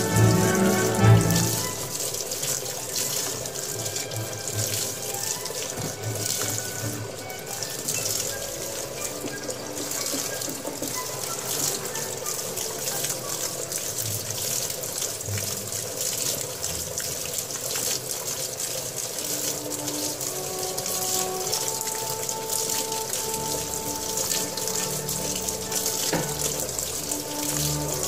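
Water running steadily into a Hitachi BeatWash 8 kg washing machine as it fills for the wash.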